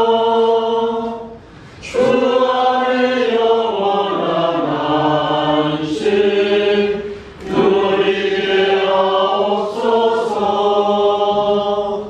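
A congregation sings the entrance hymn of a Catholic Mass together in Korean. The hymn moves in long, held phrases, with short breath pauses about two and seven seconds in.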